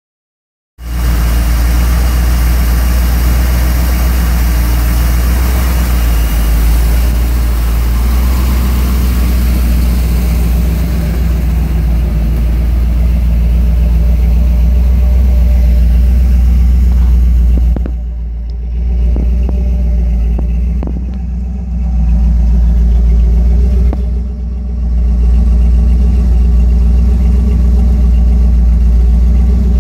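Newly installed engine in a lifted 4x4 trail rig, running steadily at its first start. The level dips briefly three times in the second half.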